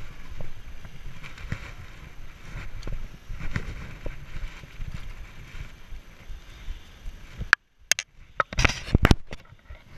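Mountain bike rolling over a grass lawn: a low rumble with scattered rattling clicks from the bike. About seven and a half seconds in the sound cuts out briefly, then comes a cluster of loud knocks and rubbing noises.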